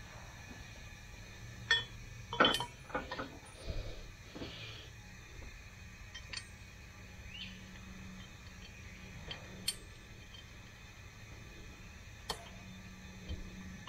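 Scattered sharp metal clinks and taps of valve-train parts and tools on an open V8 cylinder head during valve stem seal work, a cluster of them about two to four seconds in and single ones later, over a low steady hum.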